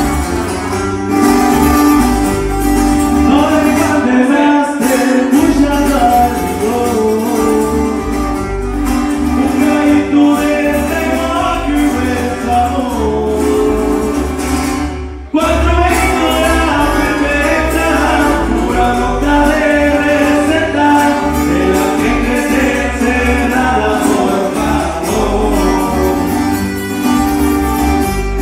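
Live band playing: a singer with guitars over a steady bass line. The music cuts out for a moment about halfway through.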